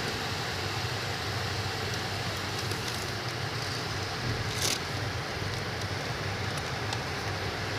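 Car engine running steadily: a low hum under an even hiss, with one short click about four and a half seconds in.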